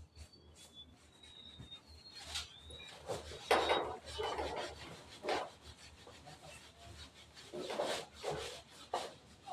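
Wood scraping and rubbing in irregular strokes during roof carpentry, loudest about three and a half seconds in and again around eight seconds.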